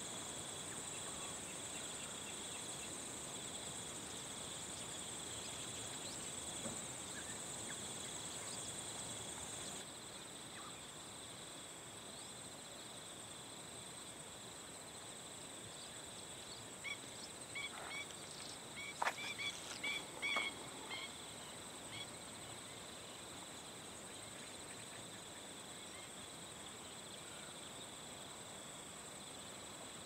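Steady high-pitched insect chirring, typical of crickets, dropping slightly in level about ten seconds in. A little past the middle comes a short flurry of bird chirps and clicks.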